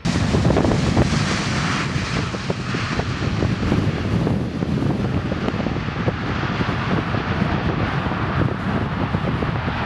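Four-engine Boeing 747-400F freighter's jet engine noise, loud and steady, as it passes low and close, touches down and rolls out on the runway. Wind buffets the microphone.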